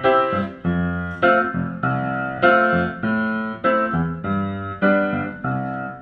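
Keyboard music: chords struck one after another, a new chord every half second or so, each ringing and fading before the next, as the instrumental introduction to a song.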